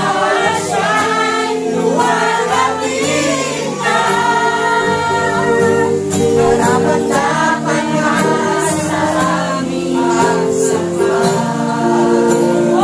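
A congregation singing a praise song in unison over electronic keyboard chords.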